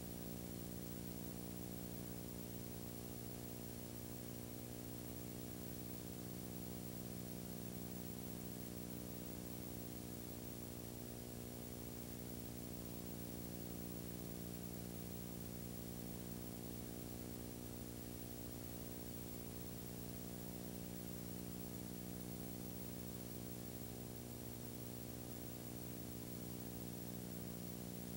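Steady electrical hum with a faint hiss, unchanging throughout, and no live sound.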